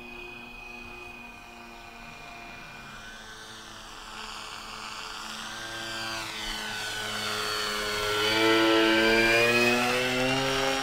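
Whine of a twin-engine electric RC scale bomber's two brushless motors and 12x6 propellers during a low pass. It rises out of background music from about four seconds in, growing louder and higher in pitch, and is loudest near the end.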